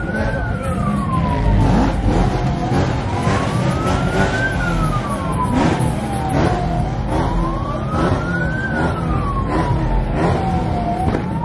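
Police car siren wailing, a slow rise and fall that repeats about every four seconds, three times, over a steady rumble of cars and crowd.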